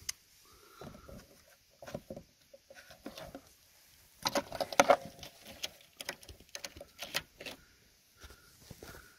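Irregular clicks, knocks and scrapes of hands working around the plastic bumper panel and metal AC fittings at the front of the car, a cluster loudest around five seconds in.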